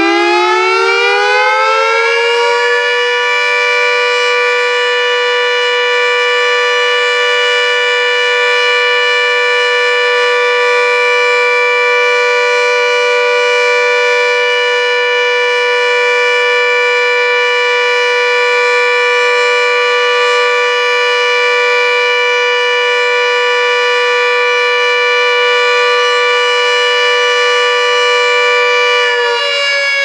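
Electromechanical warning siren with twin horns, sounding on a routine test and heard loud from right underneath. It winds up in pitch over the first couple of seconds, holds a steady two-tone wail, and begins to wind down near the end.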